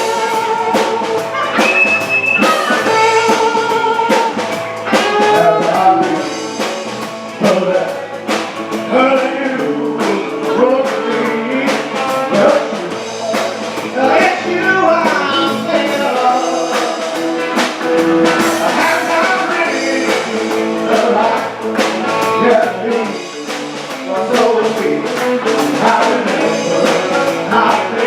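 Live band playing a song with singing, guitar and drum kit.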